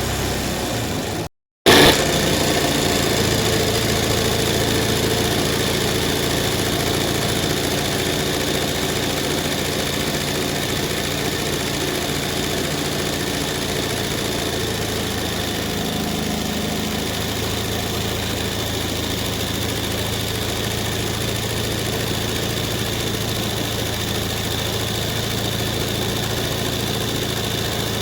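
Embroidery machine running with a steady mechanical hum. It cuts out for a moment about a second and a half in, then carries on at the same even pace.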